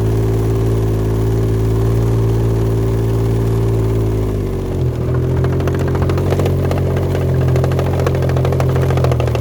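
Can-Am Ryker engine running steadily; about halfway through, its pitch shifts and a fast, loud rattling clatter sets in from the drivetrain as throttle is applied. The noise comes with the bike hesitating and refusing to accelerate. The owner cannot place it and suspects the transmission or drive belt.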